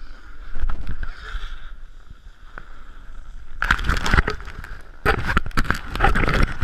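Snowboard edges scraping and carving over hard-packed snow, over a steady wind rumble on the camera microphone. The scraping gets loud twice, from about three and a half seconds in and again from about five seconds in.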